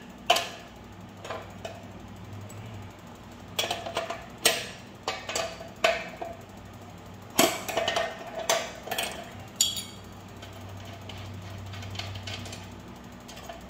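Steel combination wrenches clinking and knocking against a mini bike's rear axle nut as it is worked loose: irregular sharp metallic clicks, bunched into several quick clusters.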